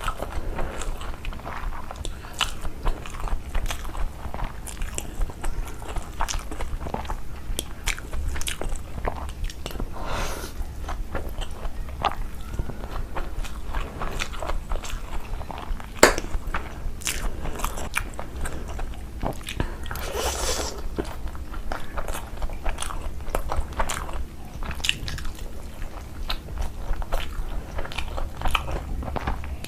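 A person eating close to the microphone: chewing and crunching food with many short wet clicks, one sharper click about sixteen seconds in. A steady low hum runs underneath.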